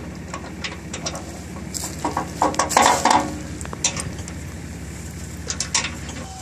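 Steel chain clinking and rattling as it is handled at the tail of a steel trailer, in scattered sharp clinks with a louder burst of clanks around the middle, over a steady low hum.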